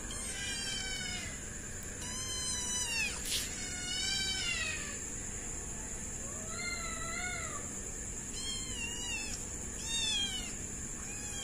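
Kitten meowing over and over, about seven high calls, each rising and then falling in pitch.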